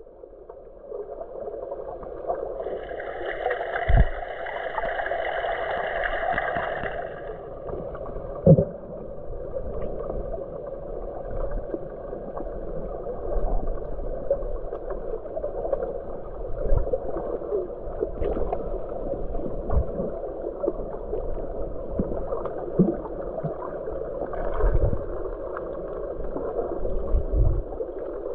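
Muffled underwater water noise picked up by a submerged camera: a steady dull rush with a brighter hiss for a few seconds near the start and occasional dull knocks.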